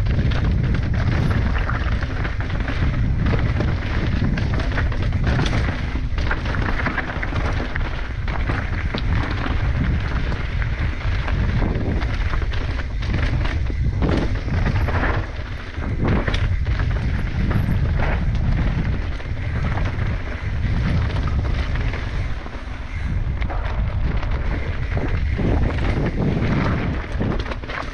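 Mountain bike descending a rocky trail: a steady loud wind rumble on the helmet camera's microphone, with frequent knocks and clatter as the tyres and bike hit rocks.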